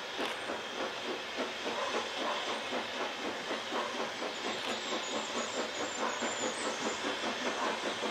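Ffestiniog Railway narrow-gauge steam locomotives working hard as they pull a train away: a rapid, even run of exhaust beats with steam hiss over it.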